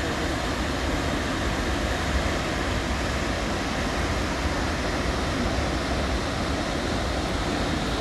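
Krimml Waterfalls: a steady, even rush of falling water heard from across the valley.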